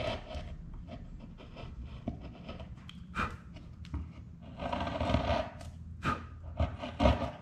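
Bench chisel paring wood by hand from a dovetail: a series of short scraping cuts, with a longer one about two-thirds in.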